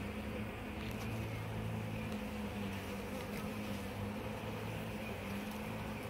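Steady buzzing hum of a honeybee swarm clustered in a wooden nuc box.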